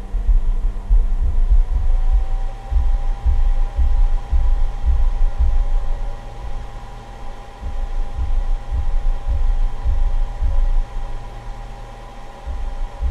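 Steady hum and whine of the cooling fan on a battery charger/discharger under load. The whine's pitch shifts slightly up about two seconds in. Under it runs an irregular low rumbling thumping.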